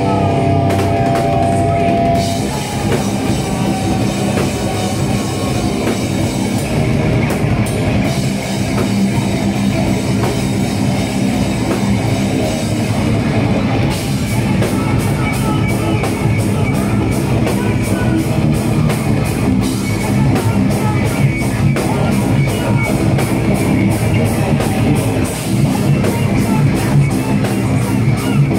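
Extreme metal band playing live: distorted electric guitars over a drum kit, loud and dense. About halfway through, the drums switch to a fast, even run of hits.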